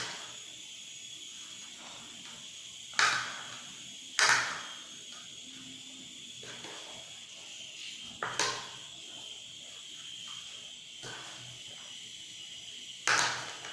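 Diced eggplant and vegetables with oil being stirred with a spoon in a bowl: four short, sharp scraping strokes a few seconds apart, with quieter stirring between them over a faint steady hiss.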